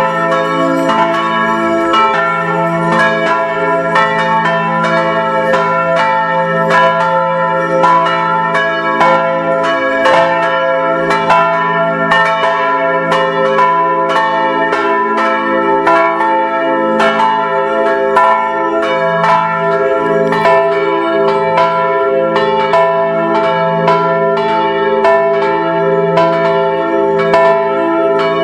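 Church bells pealing: a steady run of bell strokes, a couple a second, each one ringing on over the next.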